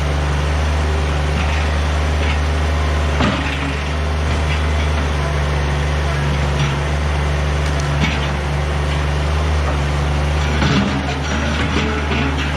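Kubota BX compact tractor's diesel engine running steadily while a log is loaded, with a few sharp wooden knocks spread through it.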